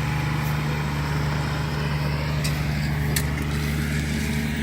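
Engine running steadily at an even speed, with two faint clicks in the middle.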